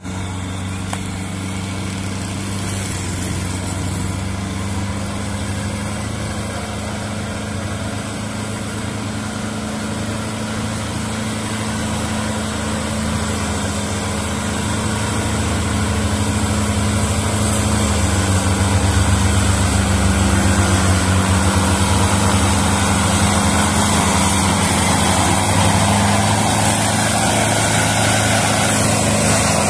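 Diesel tractor engine running steadily under heavy load while pulling an overloaded sugarcane trailer, growing louder over the first two-thirds as it approaches and then holding level.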